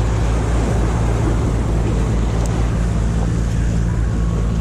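Steady low rumble of wind on the microphone and surf washing over concrete breakwater blocks, with no let-up.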